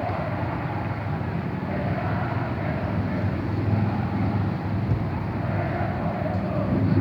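Football crowd inside a stadium, heard from outside as a distant, muffled mass of chanting and roaring, rising and falling in waves.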